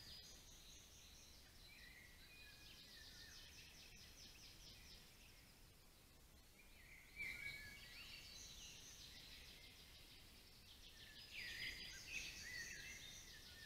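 Faint songbird chorus: several small birds singing and trilling over a light hiss, with louder bursts of song about seven seconds in and again near the end.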